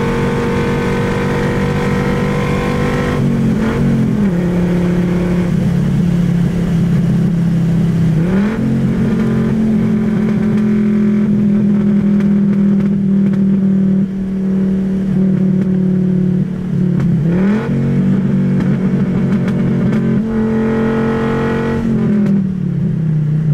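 Audi 4000S Quattro's inline five-cylinder engine droning through a straight-pipe exhaust at mostly part throttle, heard from inside the cabin. The engine note dips and climbs back a few times and falls away near the end.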